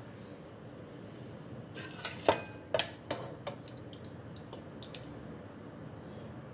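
Metal ladle knocking and clinking against a wok and a serving bowl as curry is scooped out: a quick cluster of knocks about two seconds in, the loudest with a brief metallic ring, then a few lighter taps.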